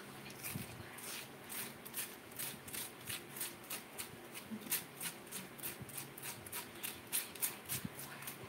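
A metal spoon scraping the soft flesh out of a cooked potato half, in quick repeated strokes about three a second.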